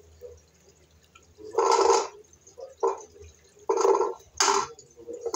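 Water gurgling down a bathroom sink drain in four short gushes, the first and longest about one and a half seconds in.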